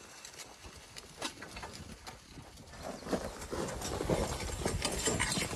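Duc hand plow's point scraping and crunching through dry, cloddy garden soil as it is pushed along a row, with irregular knocks of clods and steps. The sound grows louder and busier about three seconds in.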